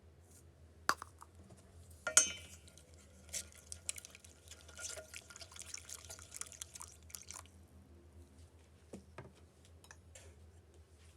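A sharp clink with a brief ring about two seconds in, then liquid dripping and trickling into a glass for several seconds, with a few light taps near the end.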